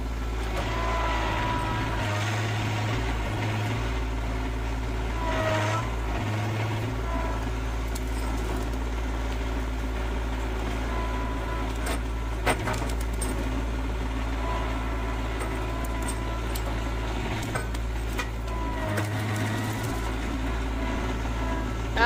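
Rural King RK25 compact tractor's diesel engine running steadily under the front loader, with a whine that comes and goes as the loader hydraulics work the pallet forks against a big log. A sharp knock sounds about halfway through.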